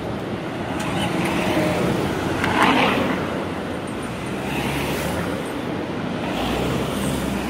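Road traffic on a busy multi-lane city street: a steady rush of passing cars, swelling as vehicles go by closer about three and five seconds in.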